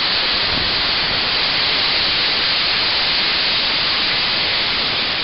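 Loud, steady hiss of steam venting from the pop-off (safety) valve on the steam dome of a small 1934 German-built wood-burning narrow-gauge steam locomotive, with the boiler at about 100 psi.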